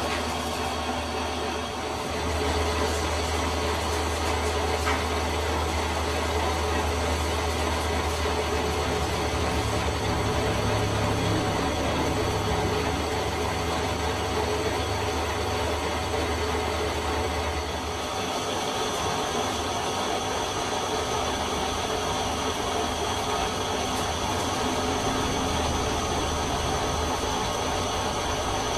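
Metal lathe running steadily with a deep motor and gearbox hum. The hum changes about two seconds in and again about eighteen seconds in.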